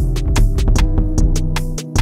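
Background music with a steady percussive beat over sustained instrumental tones.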